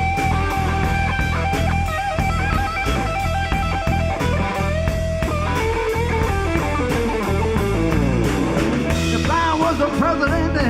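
Live rock band playing an instrumental passage: a guitar lead with bent, sliding notes over steady bass and drum kit.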